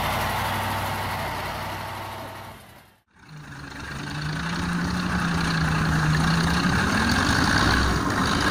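Heavy truck's engine running while it sits stuck in deep mud, fading out about three seconds in. Then a GTT tracked all-terrain vehicle's engine running as it crawls over logs, its pitch rising near the end.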